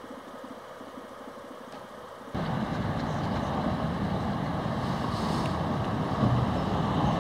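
Inland motor cargo ship pushing through floating canal ice: a low engine drone under the rush of broken ice and water along the hull, with wind on the microphone. It is fainter and throbbing at first, then suddenly much louder a little over two seconds in.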